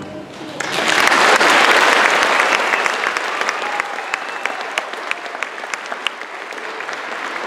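Audience applauding, breaking out about half a second in, fullest soon after and slowly thinning out.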